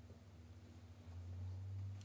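Faint low steady hum with room tone, swelling louder about a second in.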